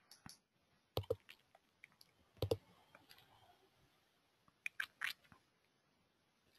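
Faint, scattered short clicks and small smacking noises: two about a second in, a sharper one about two and a half seconds in, and a close cluster of three about five seconds in.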